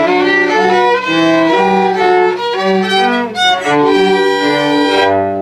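Two violins playing a duet, with bowed notes in two parts moving together, ending on a long held note that starts to fade near the end.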